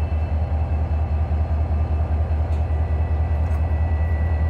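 EMD SD40-2 diesel locomotive rolling slowly past close by, its 16-cylinder two-stroke engine giving a steady low pulsing rumble, with a thin high whine held over it.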